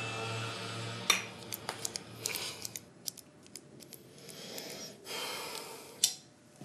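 A metal spoon clicking and scraping against a glass jar: a run of short, sharp clicks starting about a second in, after a chiming music cue fades out. Softer rustling and a single click follow near the end.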